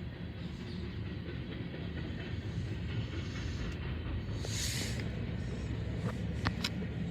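Freight cars of a BNSF train rolling past, a steady low rumble of steel wheels on rail. A short hiss comes about four and a half seconds in, and a few brief high squeals near the end.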